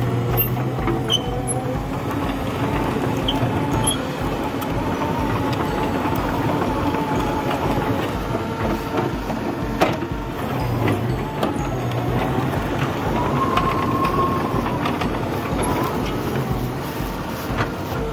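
Komatsu PC200LC-6 excavator's six-cylinder Komatsu/Cummins diesel running under working load while the boom and bucket move, with a hydraulic whine that rises and falls. A sharp metal clank about ten seconds in.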